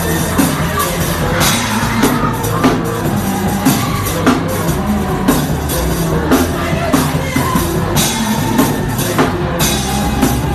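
Live worship band music, loud, with a drum kit keeping a steady beat.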